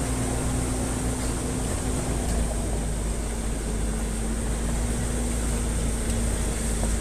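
Engine of a hired 4x4 running steadily, heard from on board: a constant low drone with a hum whose pitch dips slightly about two and a half seconds in.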